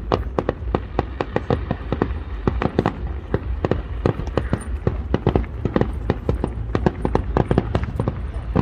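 Fireworks display: aerial shells bursting in a rapid barrage, several sharp bangs and crackles a second without a break, over a steady low rumble.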